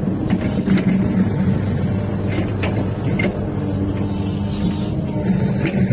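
XCMG excavator's diesel engine running steadily under load, with scattered short clicks and knocks.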